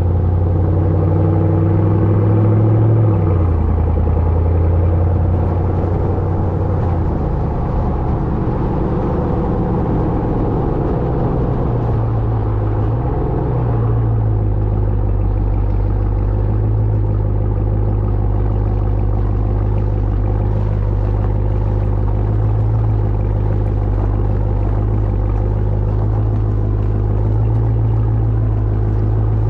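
Ram TRX's supercharged 6.2-litre V8 exhaust droning steadily while the truck is driven. The pitch steps down about three seconds in and shifts again about a third of the way through, like gear changes.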